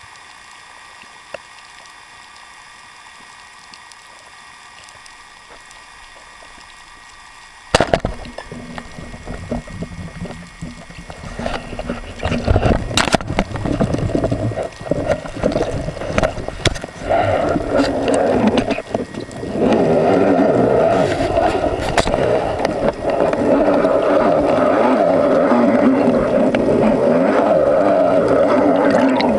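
Underwater ambience with a faint steady hiss, then about a quarter of the way in a sharp crack as a speargun fires. Irregular water turbulence and knocks follow as a speared grouper fights and tears free, building into a steady rush of water over the camera as the diver swims up toward the surface.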